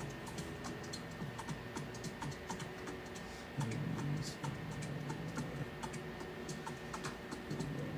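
Irregular light clicks and taps, several a second, from small tools and parts being handled at a soldering bench, over a faint steady hum.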